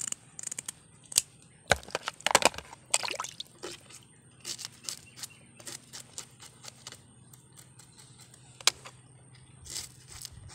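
Tilapia being scaled with a scissor blade on a wet wooden board: a run of sharp, irregular scrapes and clicks as scales are rasped off. They are busiest about two seconds in, then come in scattered strokes.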